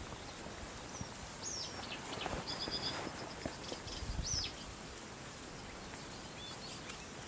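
Small birds calling: a few short, high whistles that slide down in pitch, and a brief run of rapid repeated notes about two seconds in, over a faint steady background hiss of open air.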